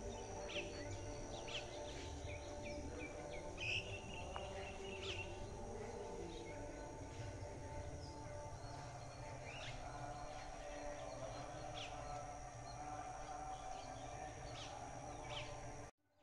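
Outdoor ambience of wild birds giving scattered short chirps and calls over a low steady rumble and a steady high whine. The sound cuts off abruptly near the end.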